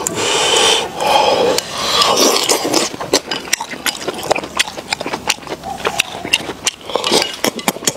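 People eating braised lamb intestines from bowls with chopsticks. Loud slurping comes in bursts over the first few seconds, then many quick clicks and smacks of chewing.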